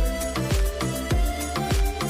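Background music with a steady electronic beat: a deep kick drum about twice a second under sustained synth tones.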